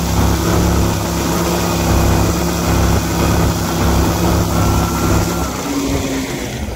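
Gator-Tail GTR 37 XD mud motor's air-cooled V-twin engine running steadily at high speed, pushing an aluminum boat, with a rush of wind and water over it. About five and a half seconds in, its steady note drops away and the sound eases off slightly.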